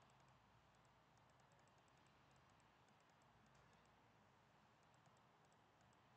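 Near silence with faint, rapid computer clicking in quick clusters, as the pages of an on-screen document are flipped.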